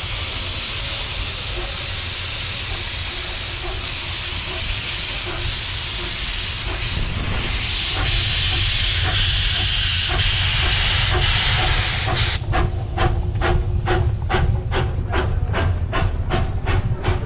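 Steam locomotive letting off steam with a steady loud hiss; about twelve seconds in it starts working, with a rapid, even rhythm of exhaust chuffs, several a second, as it gets under way.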